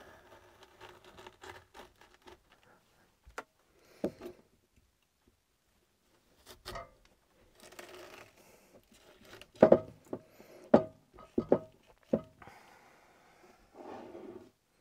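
Kitchen knife cutting a boiled head of cabbage in half on a plastic cutting board: quiet scraping and rubbing, then a run of sharp knocks of the blade on the board about two-thirds of the way through.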